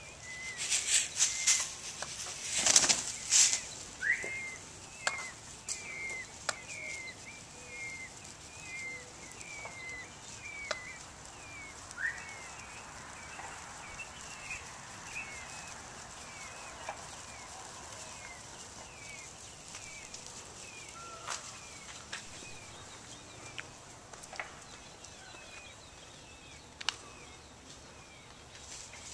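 A bird chirping over and over, short high notes about two a second, with a few longer rising calls between them. A few loud bursts of noise come in the first few seconds.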